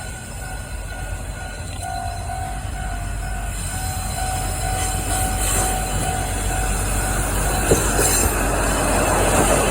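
Level-crossing alarm ringing in a steady beat while a diesel-hauled freight train approaches, its rumble and wheel noise growing steadily louder and swamping the bell. There is a single sharp clank near the end.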